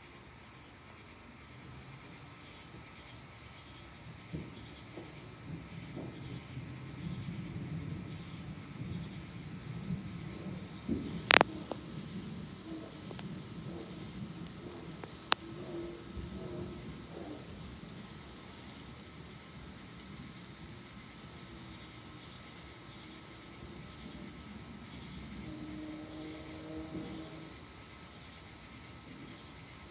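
Crickets and other insects chirping steadily at night, with low distant thunder rumbling through the middle. Two sharp clicks sound near the middle.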